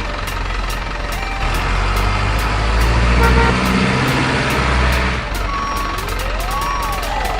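RC model truck's sound module playing a simulated truck engine that revs up for a few seconds and settles, then short electronic beeps like a reversing alarm near the end.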